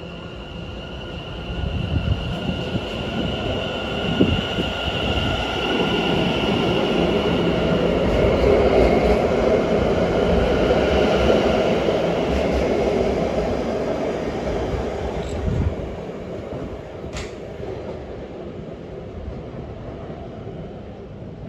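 London Overground Class 710 electric multiple unit running past the platform: a steady high whine over a rumble of wheels on rail that swells to its loudest in the middle, then fades as the train moves away. A single sharp click about three quarters of the way through.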